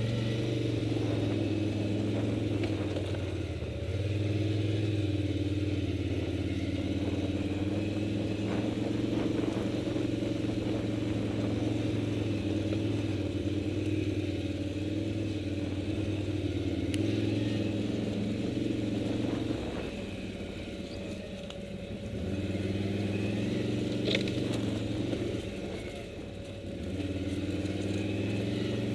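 Large touring motorcycle's engine running at low speed on a rough grass track, pulling steadily with a few light clicks and rattles. Twice in the last third it drops back briefly as the throttle is eased, then picks up again.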